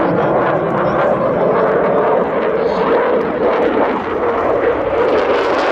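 Dassault Rafale fighter's twin Snecma M88 jet engines as the jet flies a tight turn overhead: a loud, steady rushing jet noise with no change in pitch.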